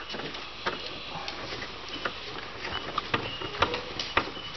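Small screwdriver working the wire-clamp screw of a solar charge controller's terminal block, making an irregular scatter of light clicks and ticks as the PV-minus wire is clamped.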